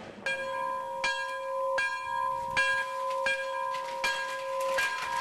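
A church bell tolling, seven strokes about three quarters of a second apart, each ringing on into the next.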